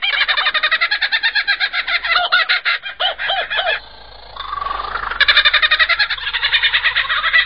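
Superb lyrebird singing, mimicking the calls of other bird species: fast runs of repeated chirping notes, about ten a second, broken by a brief lull and a short rising whistle about halfway through.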